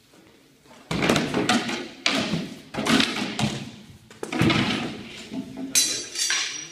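Weapons striking round wooden shields in sparring: a quick run of hard knocks and thuds that starts about a second in and comes in clusters of blows.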